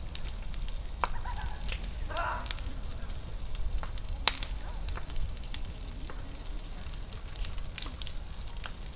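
A car fire burning, crackling with scattered sharp pops, the loudest about four seconds in, over a steady low rumble.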